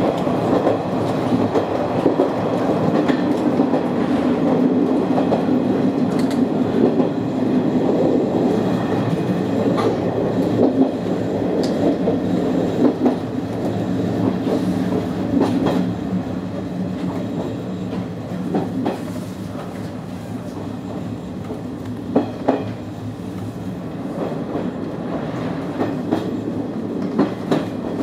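Izu-Hakone Railway 3000-series electric train running, heard from inside the front car: a steady rumble of wheels on rail with scattered clicks over rail joints. The noise eases after about sixteen seconds as the train slows for the next station.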